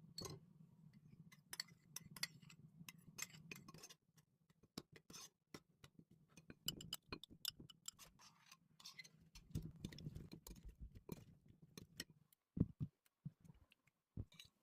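Light, irregular clicks and taps of kitchen utensils during salad preparation, with a few duller knocks near the end.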